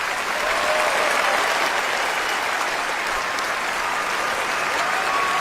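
Applause: a crowd clapping steadily, with a faint voice or whistle briefly on top.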